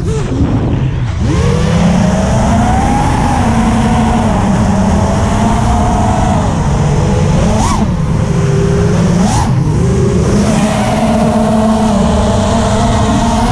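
Four brushless motors (RCX RS2206 2400kv) and propellers of an FPV racing quadcopter whining as heard from its onboard camera, the pitch rising and falling with throttle, over a steady rush of air. A few quick throttle punches come in the second half.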